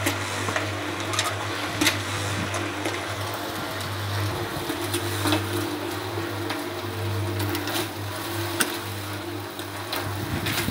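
Small drum concrete mixer running with a steady motor hum, with scattered knocks and rattles.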